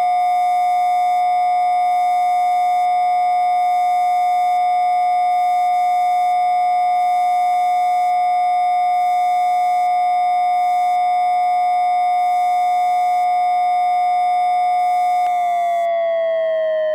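Synthesized spinning-riser sound effect: a loud, steady tone with several overtones held at one pitch, which begins to glide down in pitch near the end.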